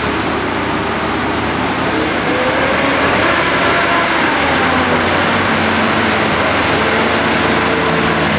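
Tigercat 610E forestry skidder's diesel engine running under load as the machine crawls down a steep muddy bank, its pitch slowly rising and falling.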